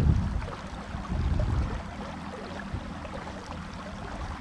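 Inflatable PVC boat running under a Nissan Marine electric outboard: water rushing and splashing along the hull over a steady low hum, the rushing loudest at the start and again about a second in.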